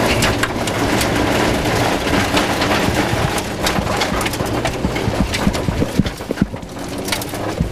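Rover 214 rally car's engine running under load on a gravel stage, with a dense clatter of stones and grit rattling against the underbody and wheel arches, heard from inside the cabin.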